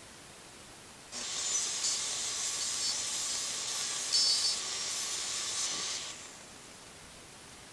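DeWalt compact jobsite table saw running and ripping a wooden board lengthwise. It is a harsh high hiss that starts suddenly about a second in and cuts off about five seconds later.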